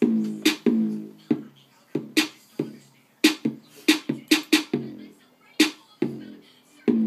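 Beatboxing: a voice making sharp percussive kicks and snares with short hummed low tones between them, a loose beat for freestyle rapping.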